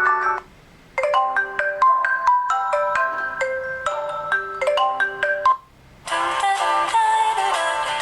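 Marimba-like ringtone melodies playing from the ZTE Blade A320 smartphone's speaker, one short tune after another. The tune breaks off briefly about half a second in and again near six seconds in, where a fuller tune starts.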